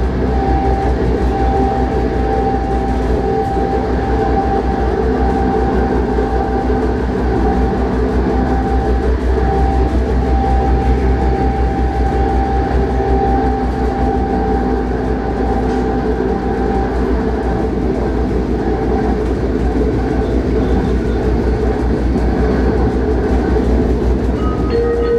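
Passenger train running at speed, heard from inside the carriage: a steady low rumble of wheels on rails with a constant whine from the drive. A short, higher steady tone comes in near the end.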